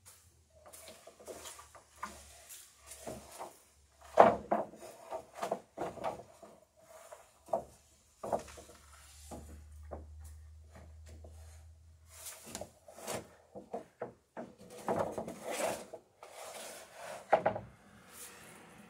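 Long wooden boards being handled and laid onto a sawhorse rack: an irregular series of wood-on-wood knocks and clatters with rubbing between, the loudest knock about four seconds in.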